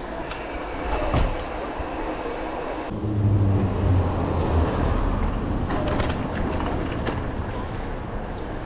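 Street riding noise, wind and tyre rumble with scattered rattles and clicks; a motor vehicle's engine hum swells in about three seconds in, then fades.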